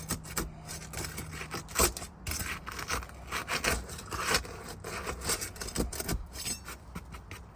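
Scraping and prying at roof shingles with a hand tool: irregular scrapes, rubs and clicks as a sealed-down shingle is worked loose.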